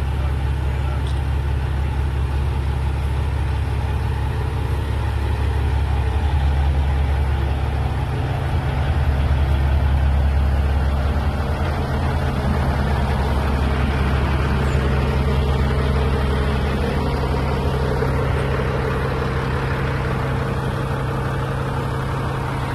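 Heavy recovery tow truck's engine running steadily to drive the hydraulic boom during a lift, growing somewhat louder for a few seconds near the middle before settling back.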